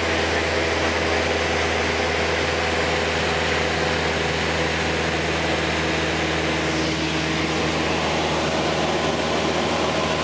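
Steady drone of a single-engine light aircraft's piston engine and propeller, heard inside the cabin in level flight, with a hiss of wind noise over it.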